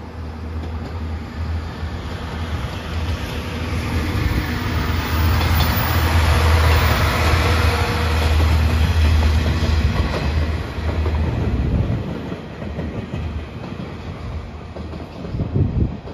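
The Seto Ohashi Anpanman Torokko, a diesel railcar set, passing close by on the track. Engine rumble and wheel noise build up, are loudest in the middle as the cars go past, and fade as the train moves away, with clickety-clack from the wheels over the rail joints.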